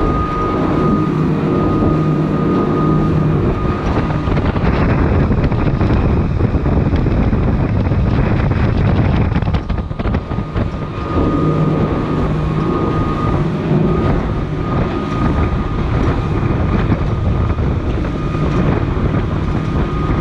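Boat running at speed over open water: a steady engine and water-rush drone with wind buffeting the microphone, and a thin steady high whine running through it.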